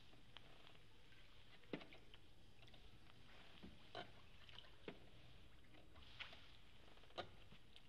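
Faint sounds of a small boat being rowed on calm canal water: soft oar splashes and drips with a few scattered light clicks and knocks, over a low steady hiss.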